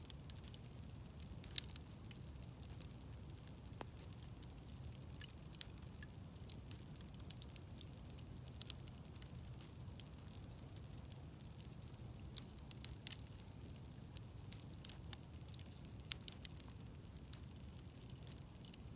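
Wood bonfire crackling: irregular sharp pops and snaps, a few at a time, over a steady low rumble of burning.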